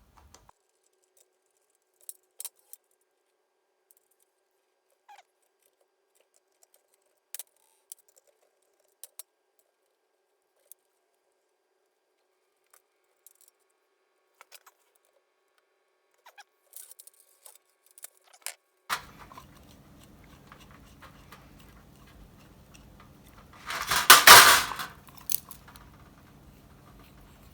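Scattered light clicks and taps of small metal parts being handled. About two-thirds of the way through, a steady low hum comes in, and a loud rasping noise lasting about a second follows a few seconds later.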